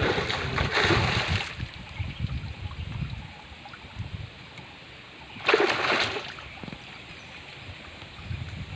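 Water splashing and dripping as a cast net is hauled up by hand out of the river alongside a canoe, with two louder splashes, one in the first second and a half and another about five and a half seconds in.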